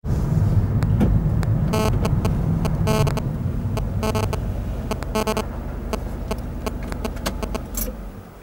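Car interior road and engine noise while the car drives slowly up to a level crossing, dying away as it comes to a stop near the end. Partway through, a short buzzing tone repeats about once a second, four times.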